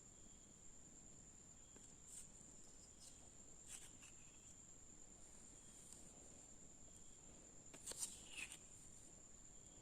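Near silence: a faint steady high-pitched whine with a few soft, short taps, a small cluster of them about eight seconds in.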